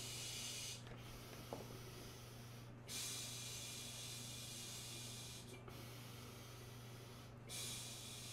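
An inflatable pool's top ring being blown up by mouth: long, hissing exhalations pushed through the valve, each about two to two and a half seconds, with short breaks to breathe in between them.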